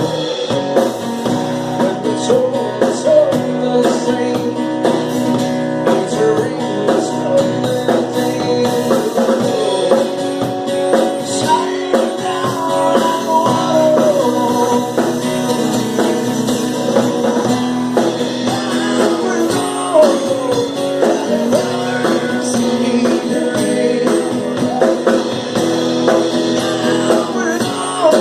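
Live acoustic pop band playing: a voice singing over guitar chords and steady percussion.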